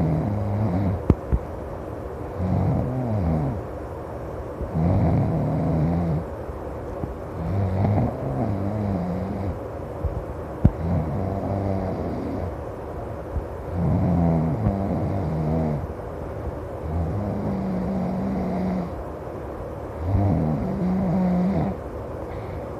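A person snoring loudly in steady breaths, one rasping snore every two to three seconds, some sliding up and down in pitch. A few short sharp clicks fall between the snores.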